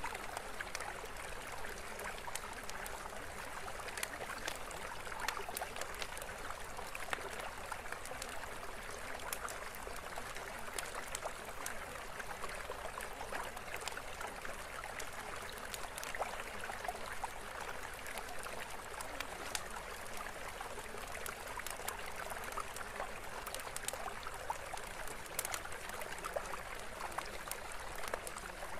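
Steady running water like a small stream: an even rush of flow with many small splashes and drips scattered through it.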